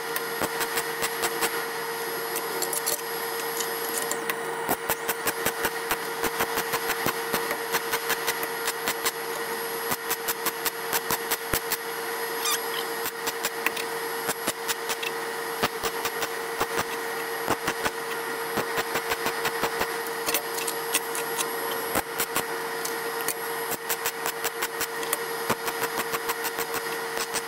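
Electric arc welding on a stainless steel exhaust pipe: the arc runs continuously with a steady buzzing tone and rapid, irregular crackling clicks.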